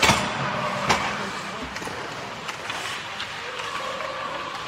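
Ice hockey play in an echoing rink: a sharp clack of stick and puck right at the start, the loudest sound, and another about a second in, with smaller knocks later, over steady arena hubbub and scattered voices.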